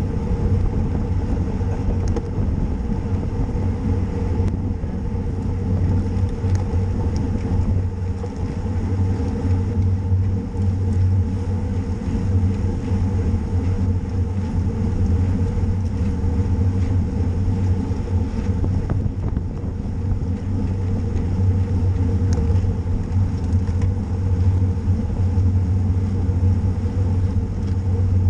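Steady low rumble of wind and road noise on a camera riding with a road bicycle at racing speed.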